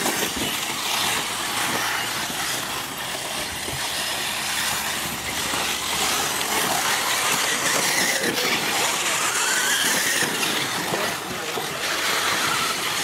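Radio-controlled racing buggies running on the track, their motors whining and changing pitch as they speed up and slow down.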